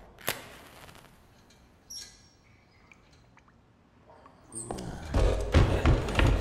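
Animated-film soundtrack: a sharp click, then a quiet stretch with a faint high squeak and a few small ticks. About five seconds in, a loud score with a heavy low rumble and repeated knocks swells in.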